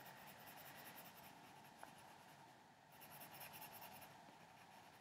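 Faint scratching of a colored pencil on paper as small areas are coloured in with short strokes, with a brief pause a little past the middle.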